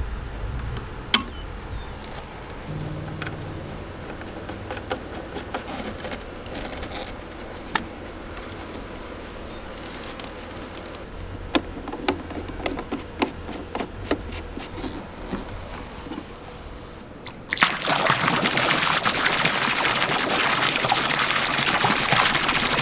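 Scattered light clicks and handling sounds, then about three-quarters of the way in a garden hose suddenly starts running, water pouring steadily into the above-ground pool as it refills.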